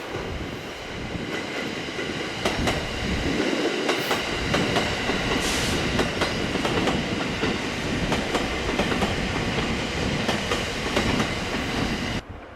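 E231 series electric multiple unit running past, its wheels knocking irregularly over rail joints and points, with a faint steady high whine beneath the clatter. The sound drops away abruptly near the end.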